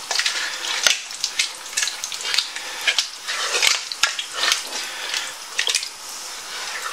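Spoon stirring a thick bean stew in a large stainless steel stockpot: wet sloshing, squelching strokes about twice a second, with an occasional sharp knock of the spoon against the pot.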